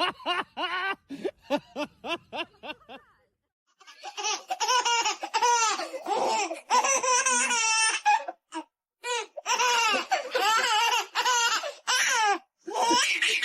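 High-pitched laughter: a run of quick giggling bursts, a brief pause, then longer drawn-out laughs that rise and fall in pitch.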